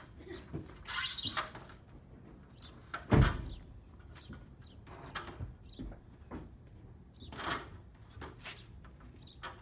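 Scattered knocks and thumps, the loudest a heavy thump about three seconds in, with a short hiss about a second in.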